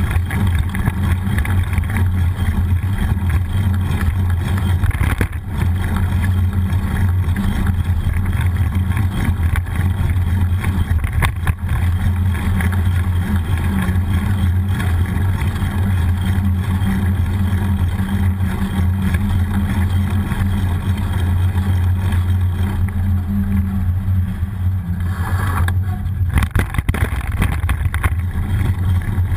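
Wind buffeting the microphone of an action camera mounted on a moving bicycle, a steady low rumble mixed with tyre and road noise. Near the end the sound turns rougher, with irregular knocks and rattles as the bike rides over a bumpier surface.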